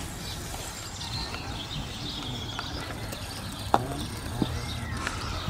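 A croquet mallet strikes a ball with one sharp wooden knock about two-thirds of the way in. A fainter knock follows under a second later, over a steady outdoor background.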